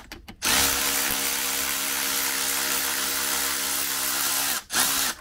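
Cordless Milwaukee Fuel ratchet spinning a nut off the outdrive's water pump housing: a steady motor whine for about four seconds, then a second short burst near the end.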